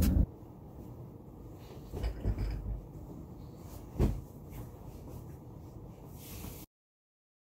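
Bed pillows being handled and tossed onto a bed, with soft rustling knocks about two seconds in and one sharper thump about four seconds in. The sound then cuts off to silence near the end.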